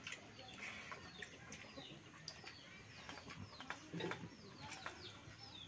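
Faint birdsong of many short, quick, falling chirps, with chickens clucking now and then, and a few light clicks.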